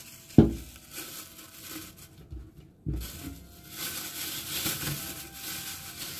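Clear plastic cling film crinkling and rustling as it is wrapped and pressed around a ball of pastry dough, with a thump about half a second in and another just before three seconds.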